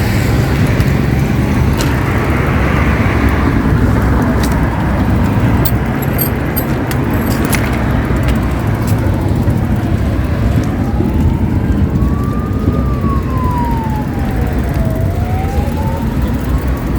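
Steady low rumble of road traffic. About halfway in, an emergency vehicle's siren comes up in a slow wail, rising and falling in pitch every few seconds.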